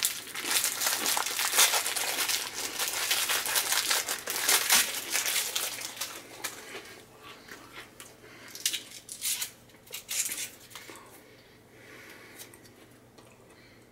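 Cellophane fortune-cookie wrapper crinkling and tearing open, dense for about six seconds, then only a few softer, scattered crackles that die away near the end.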